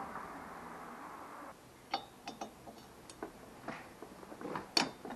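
Light metallic clicks and taps of a T-handle hex wrench on the rocker-cover screws of a Moto Guzzi V65 engine, irregular, with one sharper click near the end. Before them a steady background hiss cuts off suddenly about a second and a half in.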